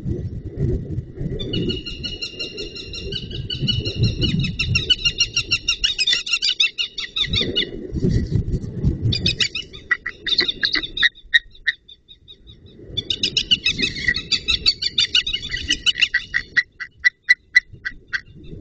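Birds of prey calling: sharp, high calls repeated rapidly in long series, with a short break around the middle. A low rumble runs underneath.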